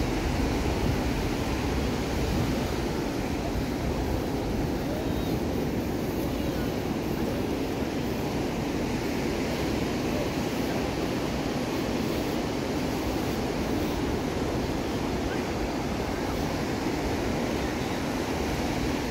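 Ocean surf breaking on a sandy beach as a steady wash of noise, with wind rumbling on the microphone.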